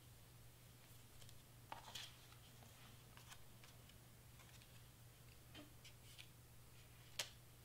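Near silence with faint rustles and light taps of cardstock pieces being handled and pressed down on a cutting mat, and one sharper tap near the end.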